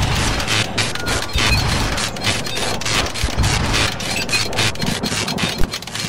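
Harsh electronic noise music: a dense crackling static full of sharp clicks over a low rumble.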